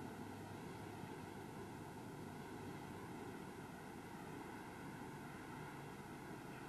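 Steady hiss with a faint low hum, the background noise of an old video recording, with no distinct sound events.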